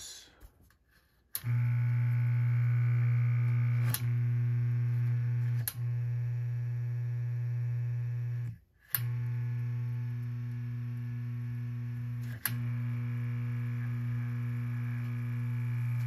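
Box fan's electric motor, bare with no blade, switched on and humming steadily with a buzzy low drone. It cuts out with a click a few times, once for about half a second near the middle. The rotor is a little stiff from long disuse.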